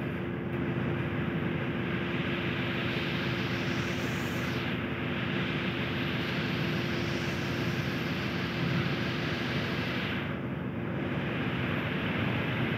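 A steady mechanical drone with a constant low hum, swelling briefly about four seconds in.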